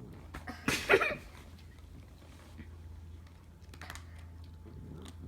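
Cat eating, with small clicking chews throughout and a short, loud cry that falls in pitch about a second in.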